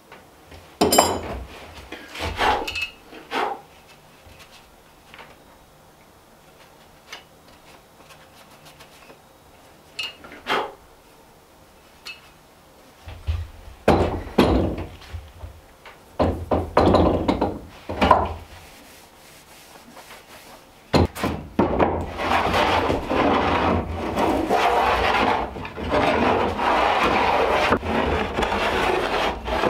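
A few separate knocks and clinks as a hand plane and small tools are handled and set down on a wooden countertop. Then, from about 21 seconds in, a hand plane shaves the wooden countertop boards in a continuous run of strokes.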